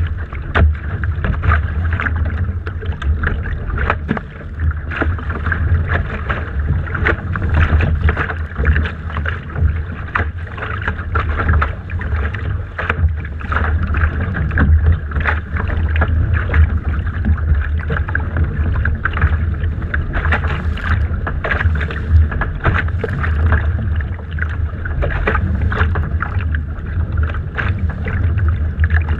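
Wind buffeting the microphone of a camera on a Laser dinghy's deck, a steady heavy rumble, with choppy water slapping and splashing against the hull in many short slaps.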